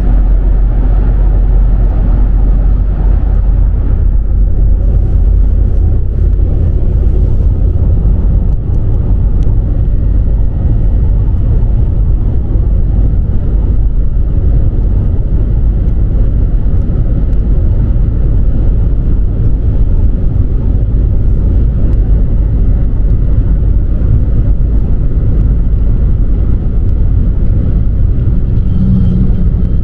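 Car driving on the road: a steady low rumble of tyre and wind noise that stays even throughout.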